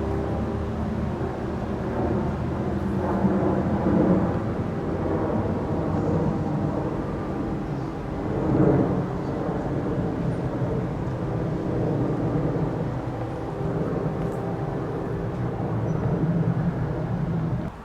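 Diesel freight locomotives running, a steady engine drone with rumble that swells briefly twice.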